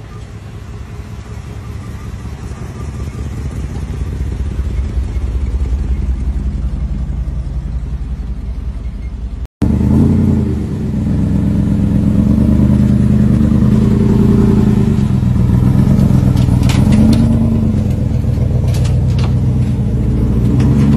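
Two classic-car V8 engines one after the other. First a low, steady rumble that grows louder as the car rolls closer. Then, after a sudden cut, a second V8 revs, its pitch rising and falling several times.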